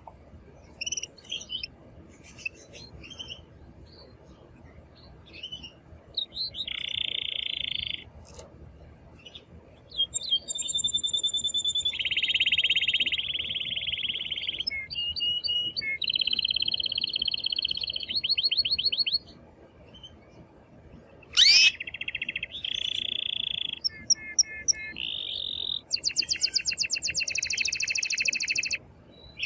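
Male domestic canary singing very loudly in breeding excitement: a few scattered chirps at first, then long, very rapid trills held a second or two each that change pitch from phrase to phrase. A sharp falling whistle comes about two-thirds of the way through and is the loudest note.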